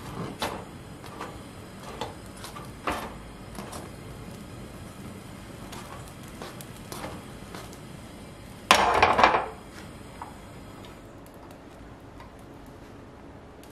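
Scattered clinks and taps of metal utensils against an iron tawa over a gas burner as a naan cooks, with a louder clattering burst about nine seconds in.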